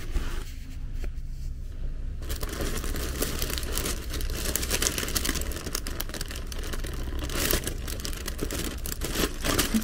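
Paper packaging and tape rustling and crinkling as a taped gift box is picked at and opened by hand, starting about two seconds in.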